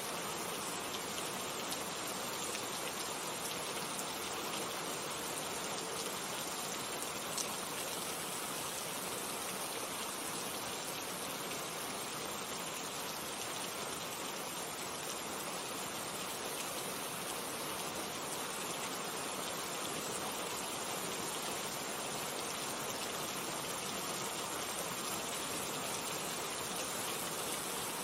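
Steady rainfall, an even hiss of raindrops with faint individual drop ticks.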